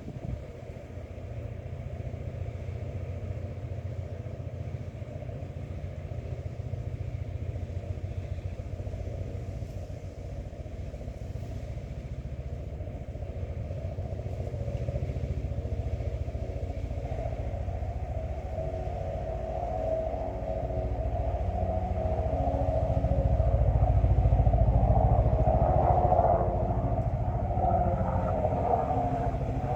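Wind blowing against the microphone with a steady low rumble. In the second half a droning sound with several steady pitches swells in, loudest about 25 seconds in, then eases a little.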